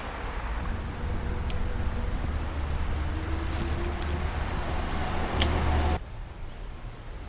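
Low steady rumble like road traffic, with a few sharp clicks, cutting off suddenly about six seconds in.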